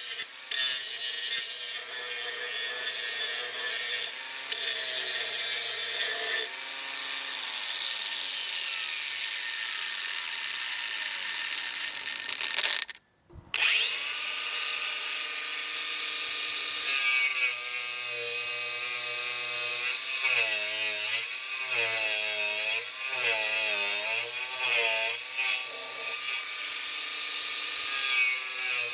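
Bosch GWS 180-Li 18 V cordless angle grinder running under load, its motor pitch dipping and recovering again and again as the disc bites into the work. It stops briefly about 13 s in, then spins back up.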